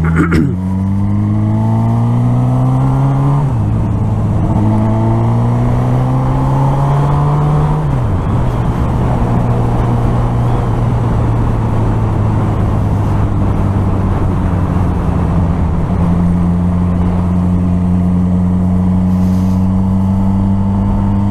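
Suzuki GSX-R1000R inline-four engine accelerating, its pitch rising and dropping at two upshifts, about three and a half and eight seconds in. After that it settles into steady cruising under a rush of wind noise.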